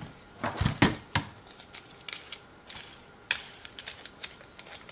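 Clicks and knocks of plastic and metal parts as an auxiliary handle is fitted to a small cordless chainsaw. A few louder knocks come in the first second or so, then scattered light clicks, with a sharper one a little past three seconds.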